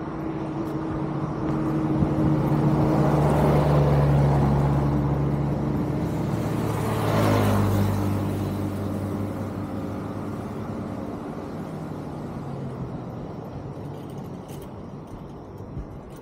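A motor vehicle passing close by on the road, its engine note and tyre rush growing louder, dropping in pitch as it goes past about seven seconds in, then fading away.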